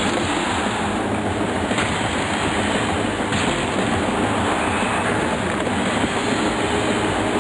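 Steady roar of a hockey arena crowd during game play, with a couple of faint knocks.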